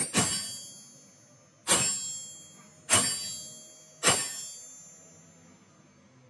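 Four hard steel-on-steel hammer blows, about a second or so apart, each ringing out brightly and fading, as the helical timing gear is driven onto the truck crankshaft.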